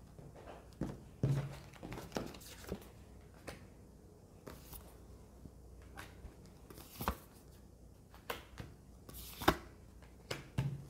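Tarot and oracle cards being dealt from a deck and laid down on a table: irregular soft taps, flicks and slides of card on card, with a few sharper snaps in the second half.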